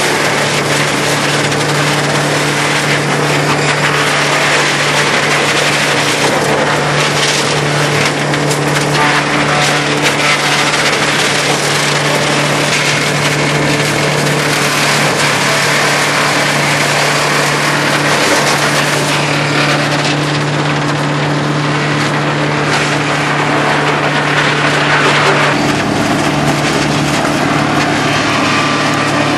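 Farmhand tub grinder's hammer mill grinding up wooden pallets, powered by its Allis-Chalmers turbo-diesel engine: a steady engine hum under continuous crackling and splintering of wood.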